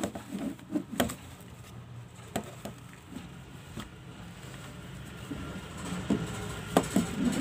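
Handling noise as an aluminium camera tripod is slid out of its black fabric carry bag: rustling with scattered sharp clicks and knocks from the legs and plastic fittings, thicker near the end.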